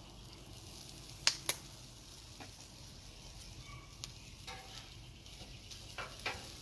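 Beef fried rice sizzling in meat grease and soy sauce on a Cuisinart 360 flat-top griddle, with a steady frying hiss. Two sharp clicks come about a second and a half in, and a few lighter scrapes and clicks follow later as the rice is worked.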